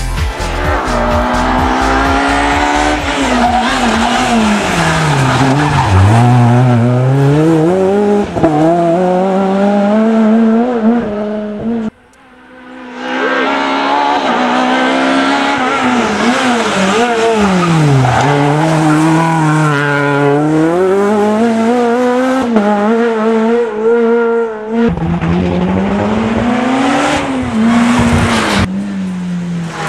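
Rally car engines at hard throttle, the pitch climbing and dropping back again and again as the cars shift through the gears on the approach and pass. The sound breaks off abruptly about twelve seconds in and switches to another car about twenty-five seconds in.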